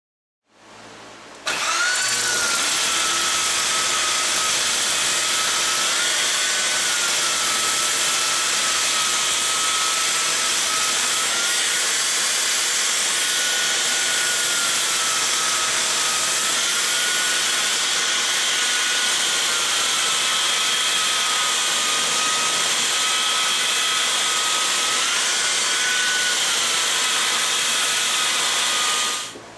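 Festool RS 2 E half-sheet orbital sander running steadily on a wooden drawer, its motor whine drifting slightly up and down in pitch. It starts up about a second and a half in and stops just before the end.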